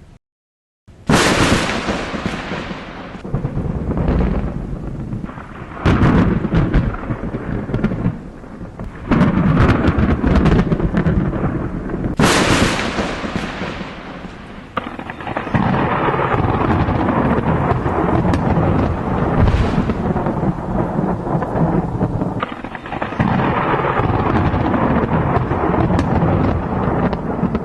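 Thunder sound effect: after a moment of silence, a sharp thunder crack about a second in, followed by rolling rumbles that swell and fade several times. A second sharp crack comes near the middle, then a steadier, continuous storm rumble through the second half.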